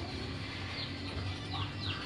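A small bird chirping: a few short, high chirps that each fall quickly in pitch, over a low steady hum.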